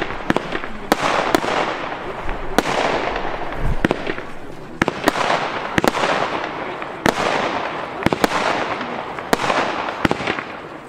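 Weco Asgard 180-shot compound firework battery firing: sharp bangs come roughly once a second, with a dense hiss filling the gaps between them.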